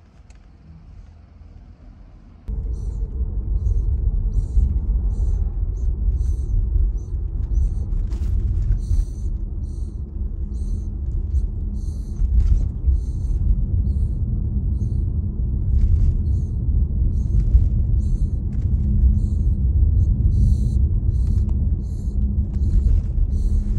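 Loud, steady low rumble of road noise inside a moving car's cabin, starting suddenly about two and a half seconds in, with short high chirps repeating over it.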